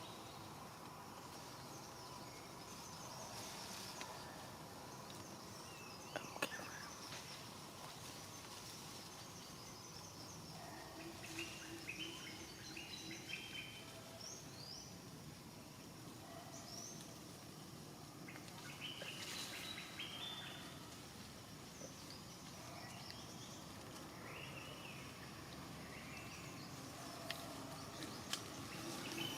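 Faint outdoor ambience with scattered short, high chirping calls through most of it, and a sharp click about six seconds in.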